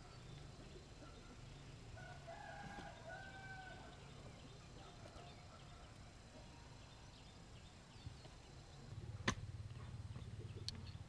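A rooster crowing faintly once, about two seconds in. A single sharp knock comes near the end, followed by a low hum.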